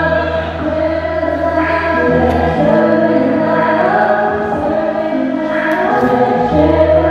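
A group of voices singing a Christian praise song over backing music with a steady bass line; the bass note shifts about two and a half seconds in and again near the end.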